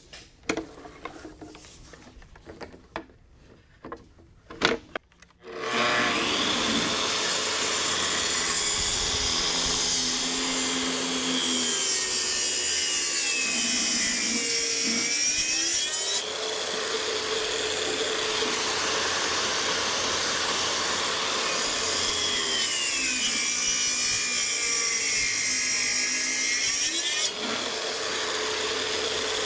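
A few knocks and clicks, then a Makita track saw starts about six seconds in and makes a long rip cut along a live oak slab on its guide rail. The motor's whine sags in pitch and recovers twice under the load of the cut.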